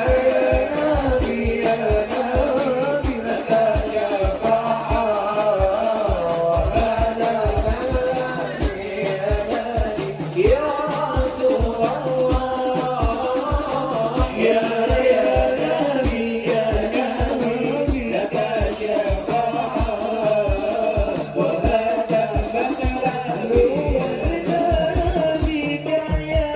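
Hadrah ensemble performing a sholawat over a PA: a male voice sings a melody over frame drums (rebana) beating a quick, steady rhythm.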